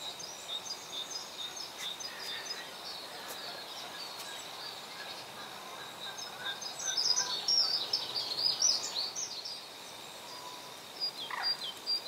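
Several songbirds singing, with a louder, fast run of high chirping notes from about seven to nine seconds in.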